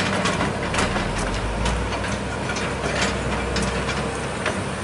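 Heavy diesel engine running, with a deep low rumble that is strongest in the middle, and several sharp knocks scattered through it.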